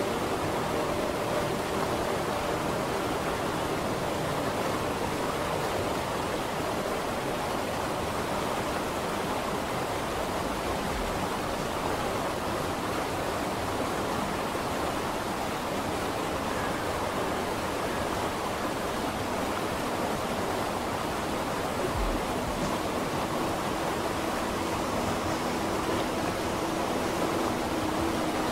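Steady, even rushing noise with no distinct events: a continuous ambience bed. A few faint steady tones sit under it near the start and again near the end.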